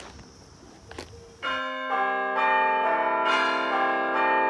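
Quiet outdoor background with a faint steady high tone and a couple of clicks, cut off abruptly about a second and a half in by added outro music of bell-like chimes, many notes struck in turn and ringing on over one another.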